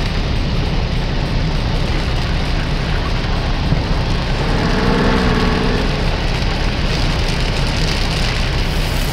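Cartoon sound effect of a fire hose spraying water, a steady rushing hiss like heavy rain, over a low steady rumble. A brief warbling tone rises through it about five seconds in.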